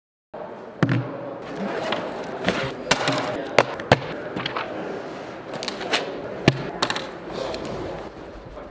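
Notebooks, pens and a textbook being taken out of a backpack and set down on a wooden tabletop: a string of irregular knocks and clacks over steady room noise.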